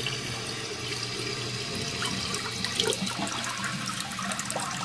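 Water spraying steadily out of the top of a defective toilet fill valve and splashing into the tank as it fills. The sound is the valve leaking from its cap instead of filling through its refill hose.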